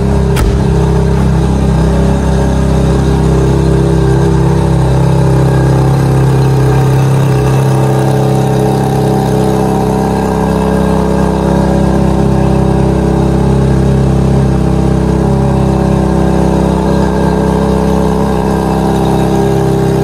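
Ferrari 430 Scuderia's flat-plane-crank V8 running at a steady idle.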